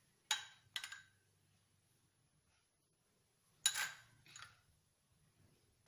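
Metal spoon clinking against dishes four times in short sharp chinks: two close together near the start, then two more a little over halfway through.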